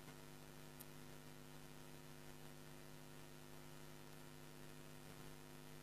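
Near silence: a faint, steady electrical mains hum in the sound system.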